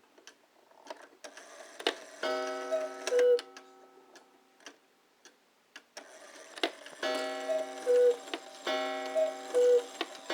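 Antique Gordian Hettich & Sohn Black Forest cuckoo clock calling: its bellows pipes sound the two-note cuckoo, high then low. It calls once about two seconds in, then after a pause twice in a row near the end. Sharp clicks of the movement come between the calls.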